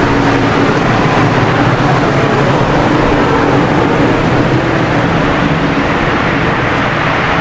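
Steady, loud machinery noise with a low hum, unchanging throughout.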